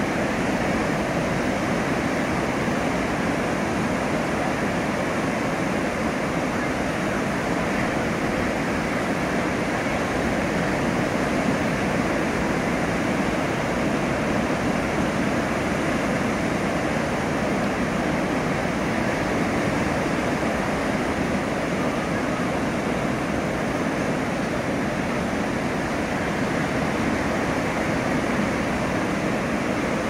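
Pacific Ocean surf breaking on the shore: a steady wash of noise with no distinct crashes standing out.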